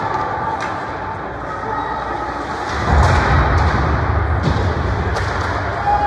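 Ice hockey play in a rink: scattered sharp clacks and knocks of sticks, puck and boards over the steady din of the arena. A low rumble swells about three seconds in.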